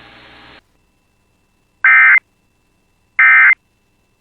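Emergency Alert System end-of-message signal: two short, loud buzzing bursts of digital SAME data about a second and a half apart, after a faint hiss cuts off.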